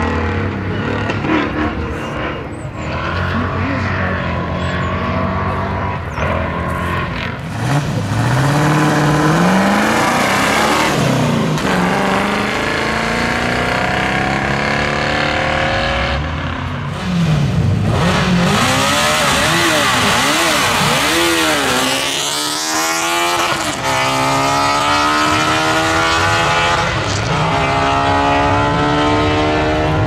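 Rally cars at racing speed on a hillclimb, one after another. Engines rev hard and climb in pitch as each gear winds out, then drop at the gear changes and lifts off the throttle.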